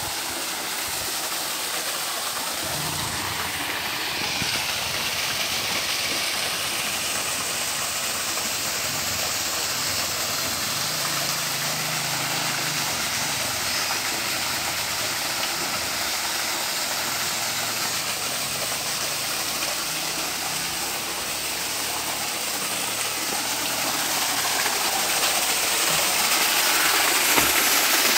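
Small waterfall pouring and splashing into a pond: a steady rush of falling water that grows louder toward the end.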